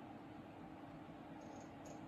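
Faint room tone: a steady low hum under a soft hiss, with a couple of tiny faint ticks near the end.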